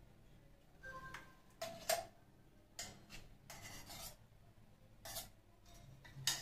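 A spoon scraping thick green chutney out of a steel mixer-grinder jar, in several short scrapes. There is a brief ringing clink about a second in and a sharper knock near the end.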